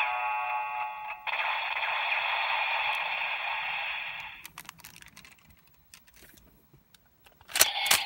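Kamen Rider Ghost DX toy playing electronic sound effects and music through its small, tinny speaker, which stops about four seconds in. A few faint handling clicks follow, then near the end a press on a DX Eyecon sets off a rapid run of electronic pulses, about four or five a second.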